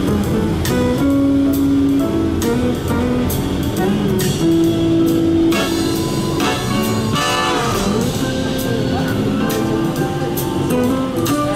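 Instrumental music with held melody notes over a steady drum beat.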